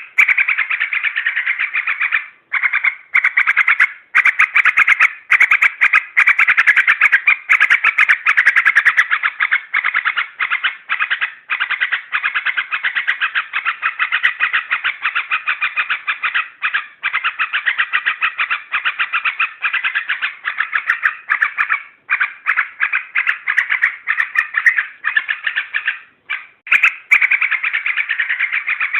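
Yellow-vented bulbul (trucuk) calling in an agitated lure recording: a fast, unbroken run of rapid chattering notes with short breaks every second or two. It sounds thin and cut off at the top, as a played-back recording does.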